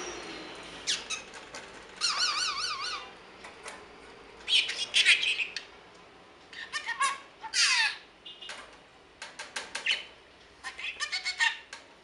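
Green budgerigar chirping and warbling in short bursts. About two seconds in there is a rapid, wavering trill, and near eight seconds a falling whistle, with a run of quick chirps toward the end.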